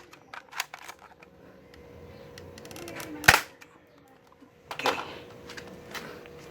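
M30 spring pistol firing: a single sharp snap about three seconds in, the loudest sound, with light handling clicks before it and a rougher clatter about a second and a half later.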